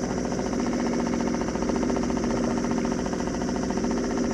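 A small boat's engine running steadily at low speed, an even, unbroken hum.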